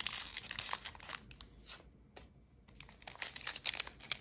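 Foil Pokémon TCG booster pack wrapper crinkling and being torn open, with a short lull about halfway through.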